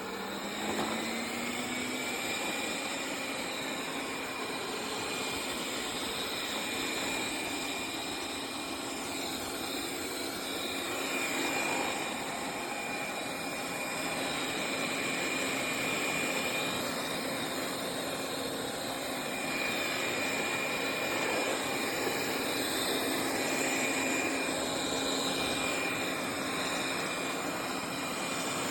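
BPMIO robot vacuum running: its suction fan spins up over the first couple of seconds into a steady whine over rushing air noise.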